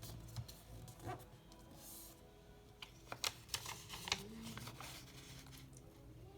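Paper being folded and creased by hand: a cluster of short, crisp crinkles and taps about three seconds in, over faint background music.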